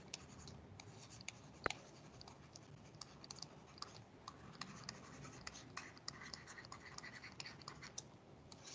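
Faint scratching and light tapping of a stylus writing on a pen tablet, many small irregular ticks, with one sharper click about two seconds in.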